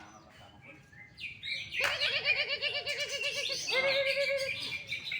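Cucak ijo (green leafbird) singing loudly, starting about two seconds in with a fast run of quickly repeated, wavering notes that carries on without a break.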